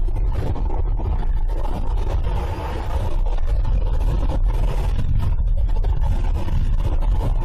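Steady, loud wind rush and rumble on the microphone as a Goat Power Bikes Power Goat electric bike is ridden flat out, with the energy heaviest in the low end.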